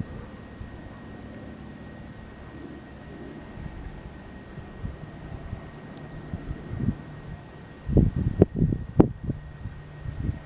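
Steady high-pitched insect chorus, with a faint pulsing chirp beneath it. Low rumbles and thumps on the microphone come near the end.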